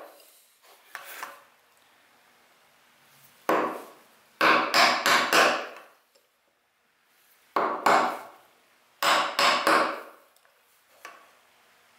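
Wooden mallet striking a small Japanese chisel, chopping waste out of a tenon. The strikes come in short bursts of two to four quick blows, with pauses between.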